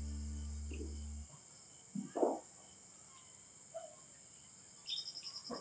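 Evening crickets: a steady high insect hum, joined near the end by a cricket's rapid pulsing chirp. A sustained low note of music fades and cuts off about a second in, and there is a brief louder sound about two seconds in.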